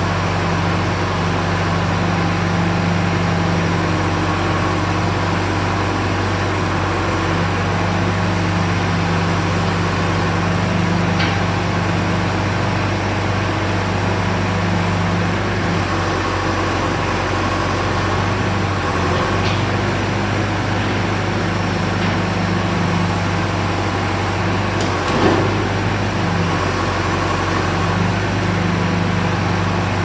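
John Deere 310E backhoe loader's 4.5-litre four-cylinder diesel engine running steadily while the backhoe boom and bucket are worked, its pitch shifting slightly at times. A single short clunk comes late on.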